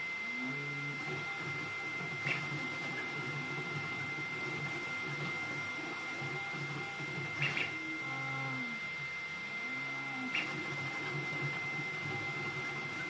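Ender-3 V3 3D printer running a high-speed print: its stepper motors whir in low tones that glide up and down in pitch as the print head speeds up, slows and changes direction, over a steady high whine. Three brief clicks come about two, seven and a half, and ten seconds in.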